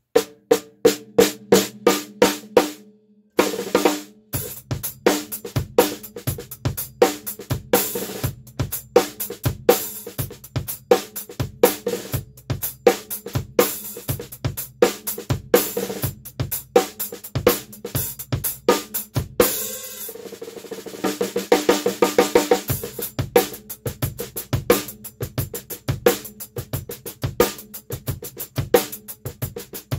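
Drum kit played with sticks in grooves and fills, led by a Worldmax Black Dawg 14x5 brass snare drum with damping on its head, with bass drum, hi-hats and cymbals. It breaks off briefly about three seconds in, and a cymbal crash rings out a little before halfway through.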